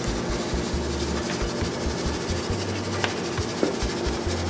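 Steady hiss with a low, even hum, with irregular low thumps and a faint click about three seconds in.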